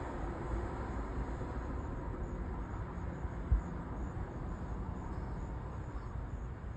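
Steady low rumble of idling vehicles in the street, with one brief thump about three and a half seconds in.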